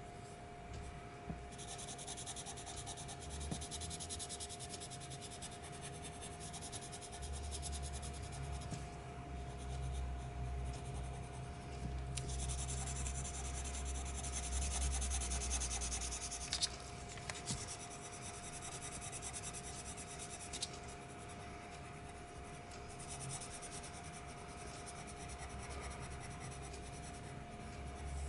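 Colored pencil shading on paper, with scratchy back-and-forth strokes in stretches, strongest in the first half, and a few sharp ticks past the middle. A faint steady hum lies underneath.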